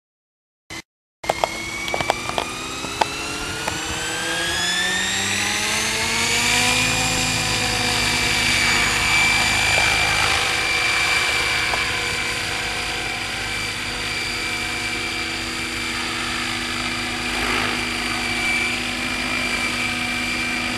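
Tazer 800 radio-controlled helicopter spooling up. Its whine starts about a second in with a few clicks, rises in pitch for several seconds, then settles into a steady tone as the helicopter lifts off and flies.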